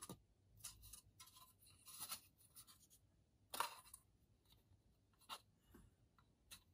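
Faint handling noise of a plastic model-kit hull part being turned in the hands: soft scattered rubs and light taps of fingers on the styrene, the clearest a little past halfway.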